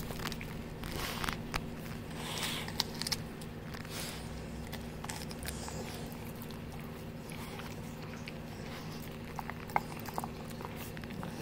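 Labrador retriever biting and crunching raw vegetables: scattered sharp crunches, busiest in the first few seconds and again near the end, over a steady low hum.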